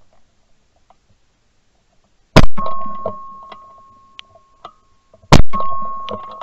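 Two shots from a 20-gauge Beretta Silver Pigeon over-and-under shotgun, about three seconds apart. Each is followed by a steady high ringing tone and a fading tail.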